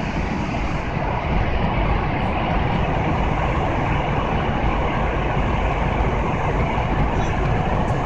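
Airliner cabin noise: the steady, even rush of the engines and airflow heard from inside the passenger cabin.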